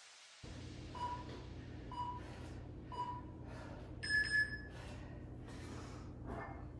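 Interval timer counting down: three short beeps about a second apart, then a longer, higher beep about four seconds in that marks the start of the next interval. A steady low hum runs underneath.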